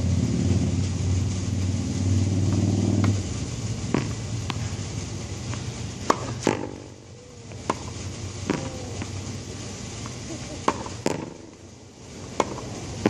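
Tennis ball struck with a racket and rebounding off a practice wall and concrete court: about nine sharp, irregular pops over ten seconds. A low steady hum cuts off about three seconds in.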